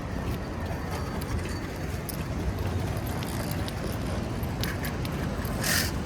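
Wind rumbling on the microphone during a run, with scattered light metallic jingles and clicks, and a short burst of hiss near the end.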